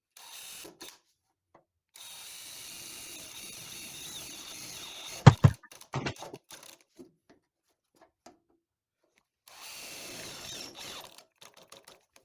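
Electric drill boring plug-weld holes through a steel rocker panel, running in two spells of a few seconds each. Between the spells comes a loud sharp knock, and a few small clicks follow.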